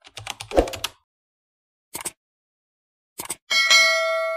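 Channel-intro sound effects: a quick run of keyboard-typing clicks with a thump in the first second, a short click about two seconds in and another about three seconds in, then a notification-bell ding about three and a half seconds in that rings on and fades.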